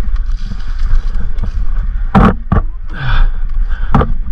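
Electric mountain bike rolling over a rough, rutted trail: a steady low rumble of tyres and wind on the helmet microphone, with sharp clunks from the bike hitting bumps about two seconds in, again just after, and near four seconds.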